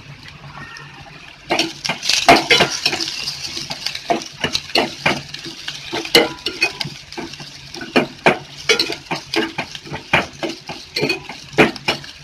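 A steel ladle scraping and clinking against a stainless steel pot in quick, irregular strokes as onions are stirred while they fry in oil. The stirring starts about one and a half seconds in.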